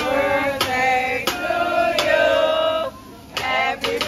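Music: a song with a singer holding long notes over a steady beat. It drops away briefly about three seconds in.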